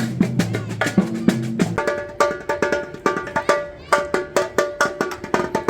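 Music with a quick, steady beat of sharp percussive clicks and held pitched notes.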